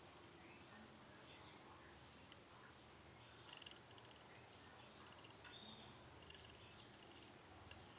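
Faint chirps and short trills of young canaries: a few quick high chirps about two seconds in, then brief buzzy trills.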